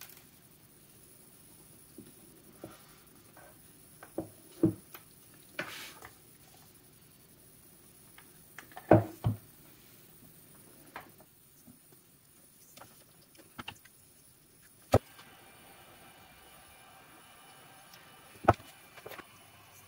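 Scattered knocks and clicks of a small electric motor, its wires and tools being handled and set down on a wooden workbench. About three-quarters of the way through, the steady whir of a hot-air rework gun's fan starts up and continues under the knocks.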